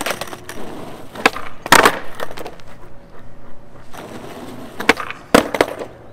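Skateboard smacking and clattering on asphalt in two clusters of sharp hits, about a second and a half in and again near the end: missed nollie varial kickflip attempts, with the board coming down upside down.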